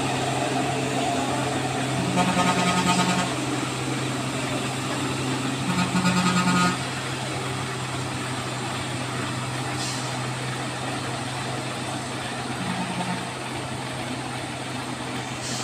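Heavily loaded Mitsubishi Fuso truck's diesel engine pulling hard up a steep grade with a steady low drone. A vehicle horn sounds twice for about a second each, and a faint third time near the end.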